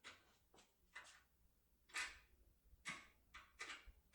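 Faint metallic clicks and short scrapes of a lock-picking tool being worked inside a cylinder lock, about seven irregular ticks.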